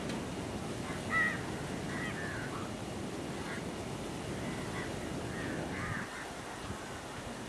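Crows cawing repeatedly in short, scattered calls over a low background rumble that drops away about six seconds in.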